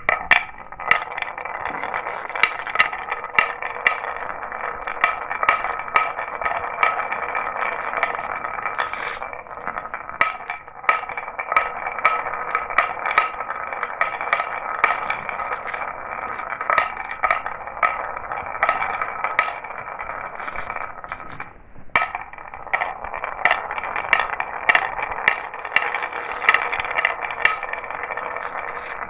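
Marbles rolling along a marble run track: a continuous rolling rattle with frequent sharp clicks and clacks as they hit the track and one another. It briefly drops out about 22 seconds in.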